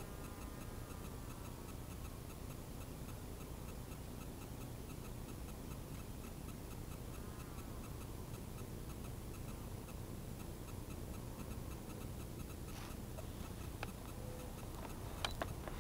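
Steady low rumble of wind on the head-mounted camera's microphone, with a faint high whine that fades out in the first second or two and a few sharp clicks near the end.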